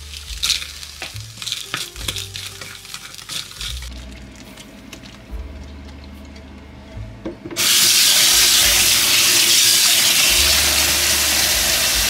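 Garlic and shallots sizzling in oil in a frying pan, with crackling pops. About seven and a half seconds in, a loud steady rush of water starts as water pours into a stainless-steel sink over a colander of blanched vegetables.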